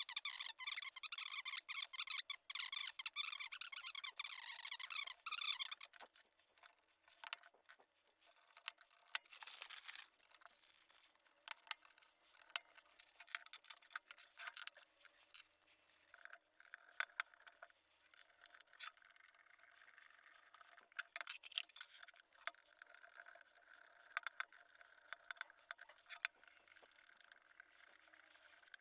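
Small scattered clicks and short scrapes of hands working with electrical wire at a bench, as connection wires are cut and prepared. For the first six seconds a busy high warbling sound runs over the top, then stops.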